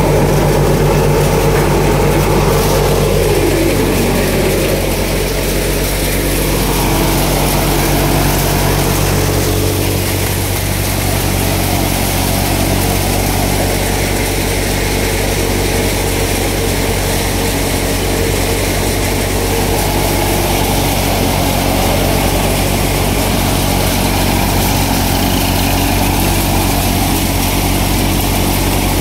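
Sonalika 50 RX tractor's diesel engine running steadily while driving a grain thresher through its PTO shaft, a constant mechanical drone. A tone in the machine's sound falls in pitch over the first few seconds.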